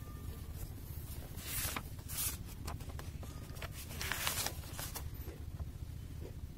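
Paper rustling as textbook pages are handled and turned: a few short brushes, the longest and loudest about four seconds in, over a low steady hum.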